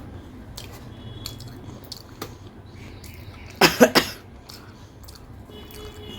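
A woman coughs, a quick burst of about three coughs a little past halfway, amid soft clicks of chewing and eating.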